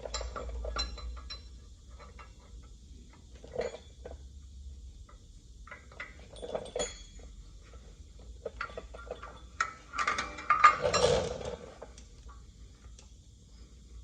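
Scattered metal clinks and knocks of tools and parts being handled, with a louder burst of clattering about ten seconds in.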